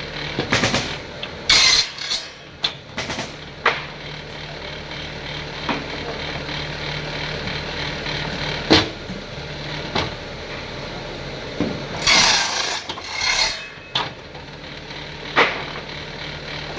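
Tools working wood: irregular scraping strokes and sharp knocks, with a longer run of scraping about twelve seconds in, over a steady low hum.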